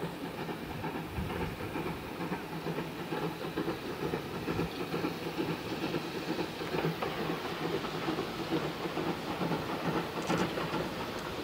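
Steam locomotive working a train towards the listener: a steady mix of exhaust and wheel-on-rail noise, slowly getting louder.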